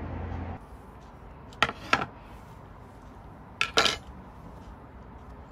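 A thin metal utensil clinks against a wooden plate in two quick pairs of taps as it is set down. A steady low hum cuts off abruptly about half a second in.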